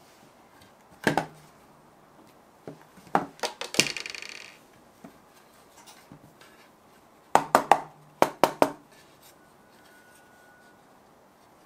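Floured metal madeleine tin being knocked against the work surface to shake off the excess flour: sharp knocks in quick groups of two or three, one of them followed by a short metallic ring.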